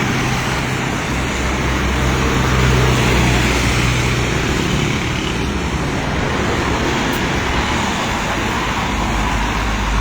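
Road traffic on a rain-flooded street: vehicles passing, with a low engine hum in the first half over a steady wash of road noise.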